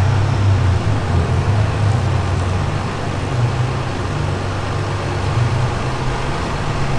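Steady low rumble of an idling vehicle engine, with street noise.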